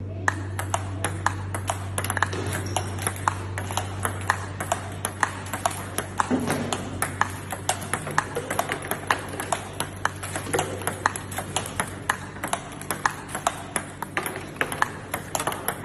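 Table tennis ball clicking rapidly and evenly off rackets and the table in a continuous practice rally, about three to four sharp pings a second.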